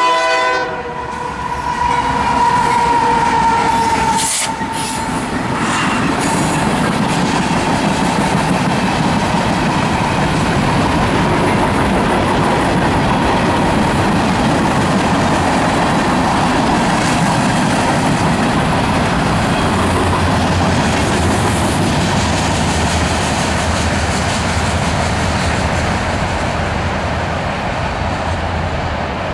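A diesel-hauled freight train passing close by: the Union Pacific locomotive's horn chord ends about half a second in, and a high steady tone follows for a few seconds as the locomotive goes by, the loudest part. Then the freight cars roll past with a steady rumble of wheels on rail and clickety-clack.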